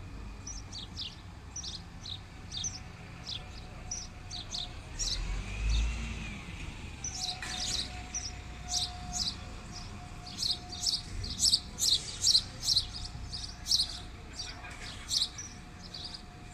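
Small birds chirping in quick, repeated short notes, sparse at first and denser and louder from about halfway. Under them is a steady low hum of buses at the station, with a brief low rumble about five seconds in.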